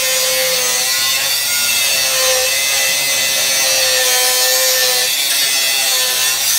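Makita 18V cordless angle grinder cutting into steel, its disc running with a steady high whine over a harsh grinding hiss that wavers slightly as the disc bites.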